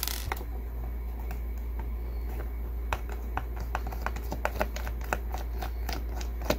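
Small screwdriver turning a screw out of the plastic housing of a Cobra Dynamike Plus CB microphone: scattered light clicks and scrapes of the tool and screw, coming more often in the second half, over a steady low hum.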